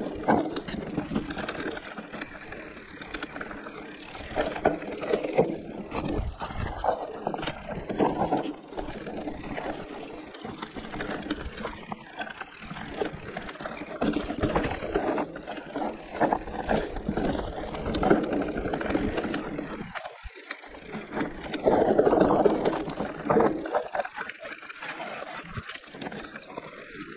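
Electric mountain bike rolling over a rough dirt trail: tyres rumbling on the ground with irregular knocks and clattering from the bike over bumps.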